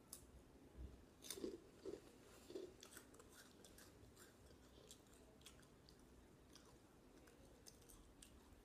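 Faint chewing and crunching of hot Cheetos, with scattered short crackles that come most often in the first three seconds.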